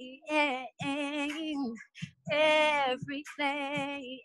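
A woman singing unaccompanied, heard over a video call: sung phrases with vibrato on held notes, with short silent gaps between them, on the lyric 'regretting'.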